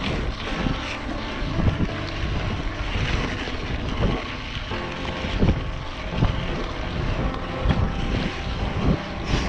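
Mountain bike rolling along a trail: a steady rush of wind and tyre noise with frequent knocks and rattles from the bike over the bumps.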